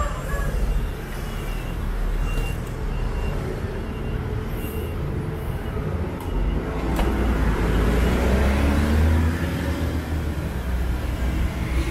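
Street traffic: a steady low rumble of engines and tyres, with one vehicle's engine rising in pitch as it speeds up past, from about seven seconds in.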